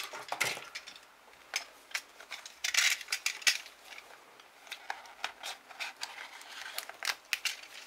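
Stiff clear-plastic blister packaging crackling and clicking in irregular sharp snaps as it is handled and worked open.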